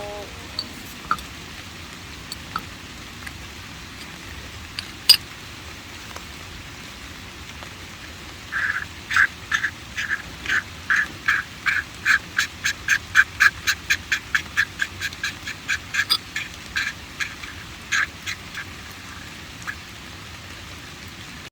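An animal calling: a long series of short, evenly spaced calls, about three a second, starting about eight seconds in, growing louder and then fading out near the end. A few single clicks come before it.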